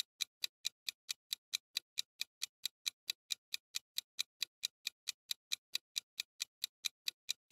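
Clock-ticking sound effect for a countdown timer: even, sharp ticks at about four a second.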